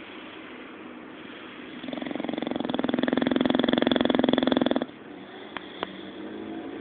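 A sleeping bulldog snoring: one long snore of about three seconds with a fast fluttering rattle. It starts about two seconds in, over quieter breathing, and cuts off suddenly.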